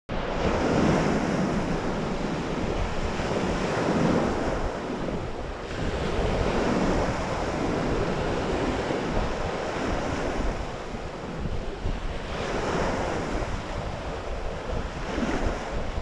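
Lake waves breaking and washing up a stony, pebbly shore, the surf swelling and easing every few seconds. A steady low rumble of wind on the microphone runs underneath.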